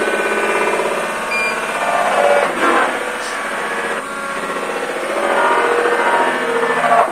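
Bosch Serie 6 washing machine on its spin cycle, making a metal-like noise over the running drum and motor. The sound swells and dips, with sharper scraping bursts about two and a half seconds in and again near the end.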